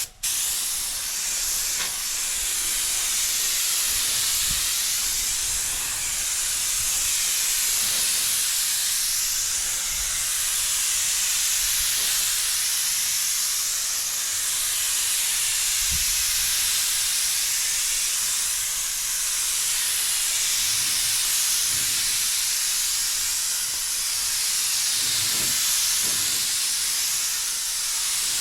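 Compressed-air paint spray gun spraying clear coat onto a car door panel: a steady, loud hiss that swells and dips every few seconds as the gun sweeps across in passes.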